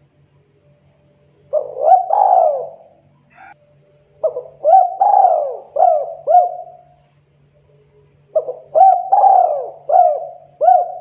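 Spotted dove cooing: three phrases of several short coo notes, each note rising and falling in pitch. The phrases start about one and a half, four and eight seconds in.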